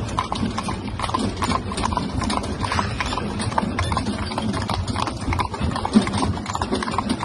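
Hooves of a pair of carriage horses clip-clopping on a paved road, a steady, even run of strikes.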